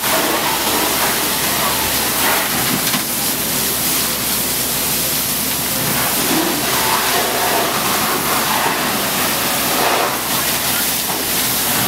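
Steady, loud rush of water spray and hissing steam as firemen hose down a burned-out pickup truck.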